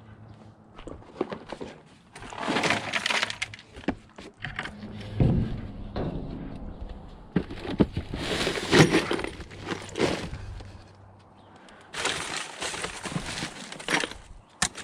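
Loose screws and scrap metal clattering and clinking as they are rummaged through and shifted, in three busier spells of rattling with single clicks between.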